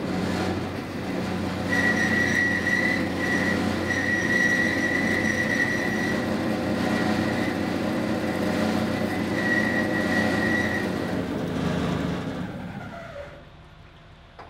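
Metal-cutting bandsaw running and sawing through a 2-inch aluminium round bar, with a steady high whine through most of the cut. The sound falls away near the end.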